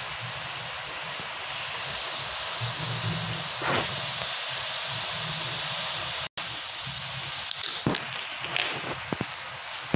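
Paper rustling as the pages of a large picture-book encyclopedia are handled and turned, with a few sharper rustles in the second half, over a steady hiss. The sound cuts out for an instant a little after six seconds in.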